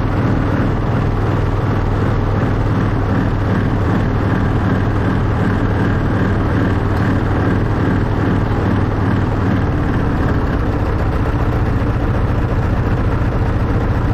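Engine of a miniature Class 91 replica locomotive running steadily, heard from on board the train; its low note shifts about ten seconds in.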